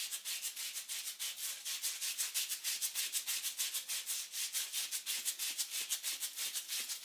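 Sandpaper rubbing on copper pipe as the pipe is twisted back and forth inside the wrapped paper, cleaning the copper: a fast, even rasping of several strokes a second.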